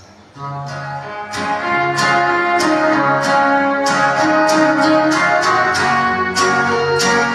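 Instrumental music for the mass starts a moment in: held chords that change every second or so over a steady beat.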